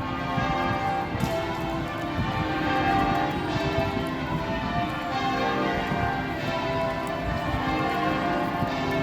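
Church bells ringing loudly: several bells sounding on and on in an overlapping peal, their tones ringing into one another.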